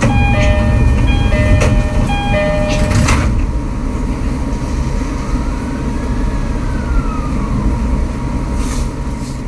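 Takasaki Line commuter train standing at a platform with a low rumble. A short electronic chime melody of stepped notes plays over the first three seconds and ends in a sharp clack, then a faint tone rises and falls.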